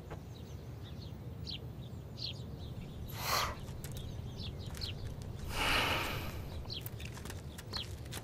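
Small birds chirping in the background, short quick calls scattered throughout, over a steady low ambient hum, with two soft rushing swells about three and six seconds in.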